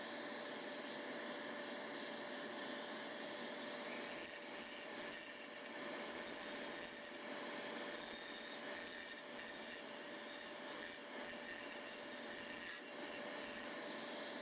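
Wood lathe running with a steady hum while a turning tool cuts inside a dry spalted maple bowl. From about four seconds in comes irregular scraping and rasping of the tool's edge on the spinning wood.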